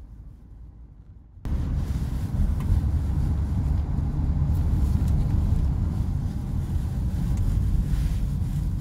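Low, steady in-cabin road and drivetrain rumble of a SsangYong Torres SUV rolling downhill at about 30 km/h with hill descent control holding its speed. The rumble is quieter at first, then jumps suddenly louder about a second and a half in.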